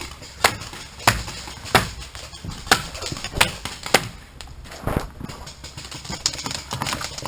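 Paintball markers firing in scattered sharp shots, roughly one or two a second at uneven intervals.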